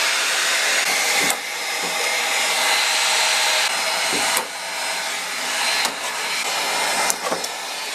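Heat gun blowing steadily, used to soften old glue so a drawer can be taken apart, with a few sharp knocks of work on the wood.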